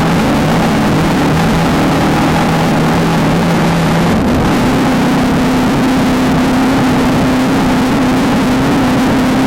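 Off-road desert race car's engine running hard at a steady pitch, under a constant rushing noise. Its note shifts about four seconds in.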